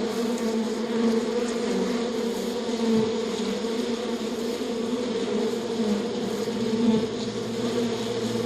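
Steady buzzing of flying insects, bees or wasps, a low hum with small swells in pitch now and then.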